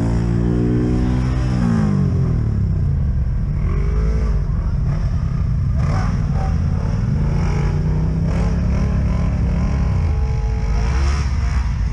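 Off-road vehicle engine running under throttle. The pitch holds high, drops about two seconds in, climbs again around seven seconds and falls back near ten seconds.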